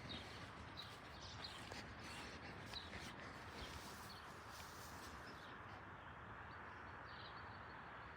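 Quiet outdoor ambience with faint, scattered bird chirps.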